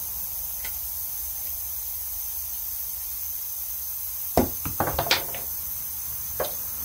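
A quick run of sharp knocks and clicks about four seconds in, and one more near the end, over a steady hiss: tools or parts being handled during work on the tractor's steering.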